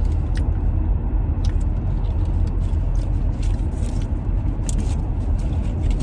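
Steady low road rumble inside a moving car's cabin, with scattered small clicks and crackles over it, fitting chewing and handling of leaf-wrapped tupig.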